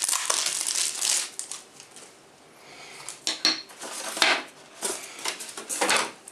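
Cardboard box packaging being handled: rustling and crinkling for about the first second and a half, a short lull, then several brief scrapes and rustles as the white moulded packaging tray is lifted out of the box.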